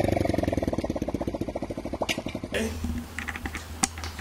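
Honda Monkey's 50cc single-cylinder four-stroke engine running in a quick, even beat, falling slightly in pitch and growing quieter. About two and a half seconds in it cuts off abruptly to a quieter room with a steady low hum and a few sharp clicks.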